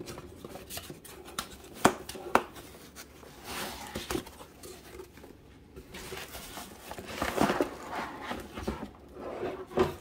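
Packaging being handled while a cardboard box is unpacked: sharp knocks of cardboard flaps and packing foam, the two loudest about two seconds in, then rustling of the plastic bag wrapped around the appliance as it is lifted out.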